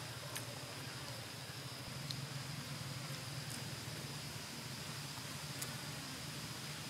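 Forest ambience: an insect drones on one steady high note over a low background hum, with a few faint clicks.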